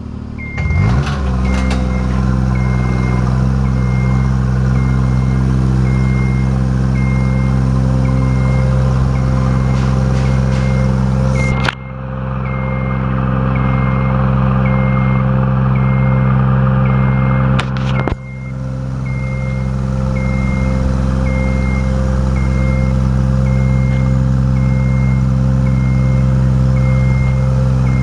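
Genie GS-2668RT rough-terrain scissor lift with its engine running under load as the platform rises, and its motion alarm beeping about once a second. The engine speeds up about a second in, and the level dips briefly twice before picking back up.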